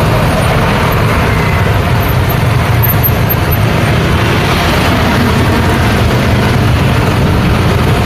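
Busy street traffic: a bus, a small truck and motorcycles passing close by, with a steady rumble of engines and tyre noise.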